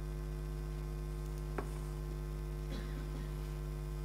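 Steady electrical mains hum in the sound system, with a single sharp click about a second and a half in and a faint brief rustle near three seconds.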